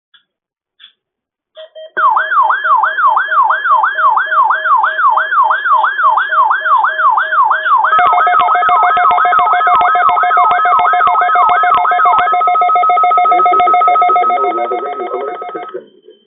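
Weather radio alert tones from a NOAA Weather Radio weekly test: a siren-like tone sweeps down from high to low about two and a half times a second. About halfway through, a steady alert tone joins it. The sweeping stops about three-quarters of the way in, and the steady tone fades and cuts off near the end. A few short data chirps come just before the tones start.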